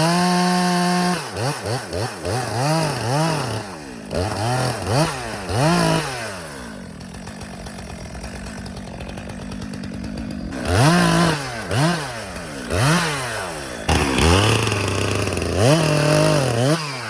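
Two-stroke chainsaw revved up and down in repeated short bursts while cutting into the hinge of a tree hung up in another tree, dropping to a steady idle for about four seconds in the middle before revving again.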